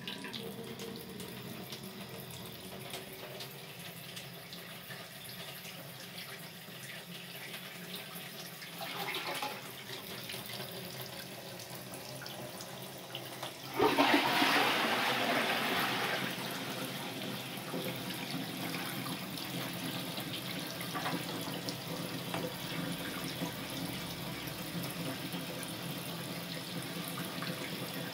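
Water running from a tap into a stainless steel sink, louder for a couple of seconds about halfway through.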